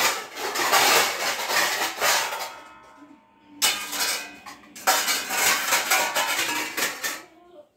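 Stainless steel pots, plates and utensils clattering and clanking as they are picked up and stacked onto a metal wall rack. A stretch of clatter gives way to a ringing note that dies away at about three seconds, then the clatter starts again and goes on until just before the end.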